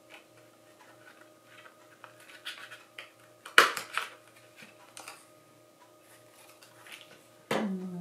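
Handheld craft hole punch snapping shut through black paper, one sharp click about three and a half seconds in and a smaller one just after, with faint ticks of paper and tool handling around them.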